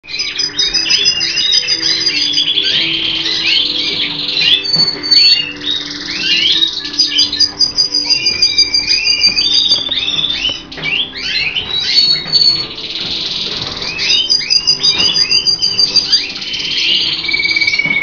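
Colour canaries singing: loud, continuous song of fast trills and quick chirps, with several rapid rolls of repeated notes. Soft music with sustained notes runs underneath.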